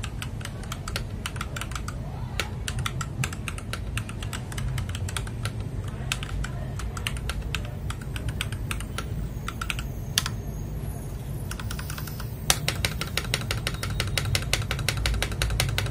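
Typing on a mechanical keyboard: irregular key clacks that turn into a fast, dense run about twelve seconds in.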